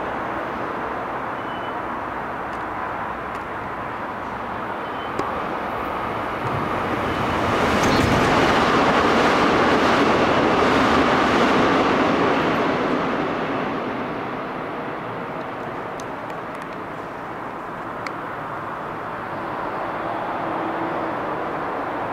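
AREX electric train running past the station platform behind its platform screen doors. Its rumble swells from about six seconds in, holds loudest for a few seconds, then fades away.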